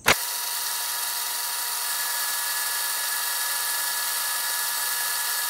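Metal lathe turning the outside diameter of an aluminium ring, a light cleanup cut: a steady hiss of cutting with a steady whine of two tones from the machine. It starts abruptly with a click.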